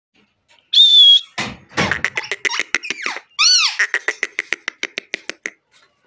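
Rose-ringed parakeet calling: a loud, steady high whistle about a second in, then a quick run of short chattering notes with one rising-and-falling squawk in the middle, tapering off shortly before the end.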